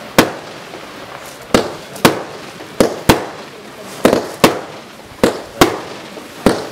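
Broekhoff Extreme firework barrage firing: about ten sharp bangs at uneven intervals of half a second to a second, each followed by a short echoing tail.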